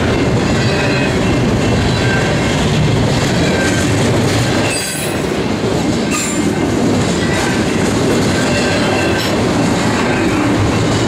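Double-stack intermodal container well cars rolling past close by: a steady rumble and clatter of steel wheels on rail, with short high wheel squeals coming and going.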